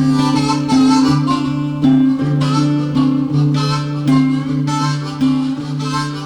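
Background music: an instrumental stretch of a song, with held notes over plucked chords.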